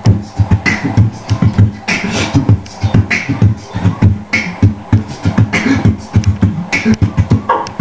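Beatboxing through a PA microphone: a fast, steady beat of low thumps with a sharp hissing snare-like stroke about once a second.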